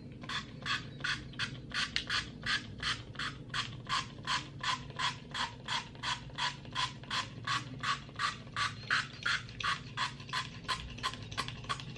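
Warheads sour candy spray bottle pumped into the mouth again and again, a short squirt about three times a second in a steady, even rhythm.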